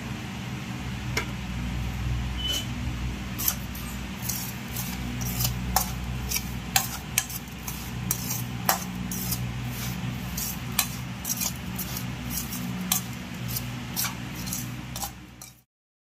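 Metal spoon stirring crumbly ragi puttu in a stainless steel bowl, clinking and scraping against the bowl in irregular clicks that come thick from about three seconds in, over a steady low hum. The sound cuts off abruptly near the end.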